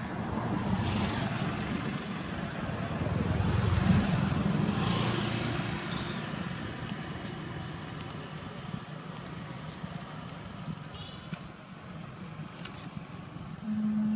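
A motor vehicle passing on the road, growing louder to a peak about four seconds in and fading away over the next few seconds.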